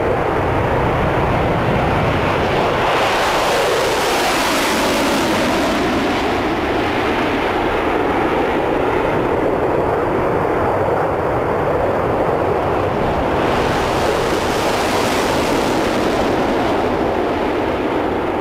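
Concorde's four Olympus 593 turbojets at full takeoff power with afterburners lit, a loud, steady jet noise through the takeoff roll and climb-out. The high hiss swells twice, about three seconds in and again about fourteen seconds in.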